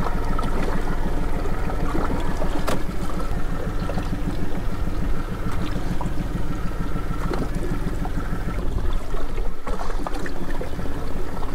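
Small aluminum fishing boat moving slowly at trolling speed, its motor running steadily and water lapping against the hull, with a few light knocks.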